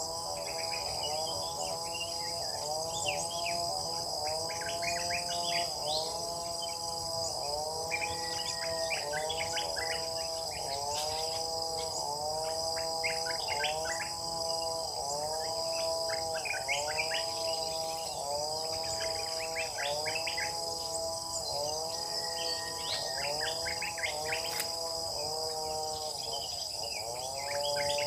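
Countryside insect chorus with a steady high buzz from crickets or cicadas, over a string of rising-and-falling tonal bird notes repeating about once a second, mixed with bursts of quick higher chirping from other birds.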